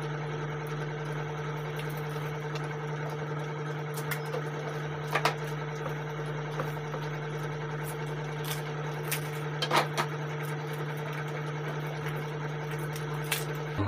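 A steady low machine hum, with a few short, sharp cracks as crisp phuchka (pani puri) shells are broken open and eaten.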